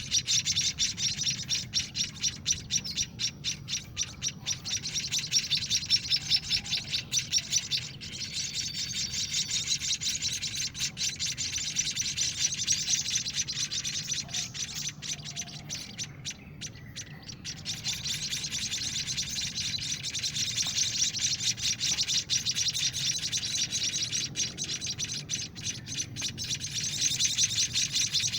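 Week-old emprit kaji (munia) chicks giving rapid, high begging chirps while being hand-fed, with a brief pause about halfway through.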